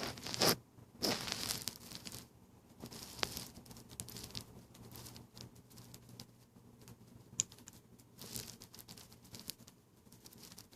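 Sleeping dog snoring: several short snoring breaths at uneven intervals.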